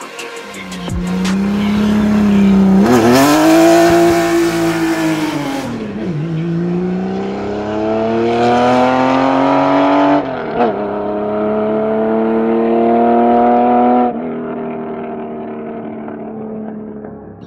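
Straight-piped Porsche 993 air-cooled flat-six accelerating hard through the gears: the exhaust note climbs in pitch in each gear and drops sharply at upshifts about three, six and ten and a half seconds in. About fourteen seconds in it turns duller and fades away.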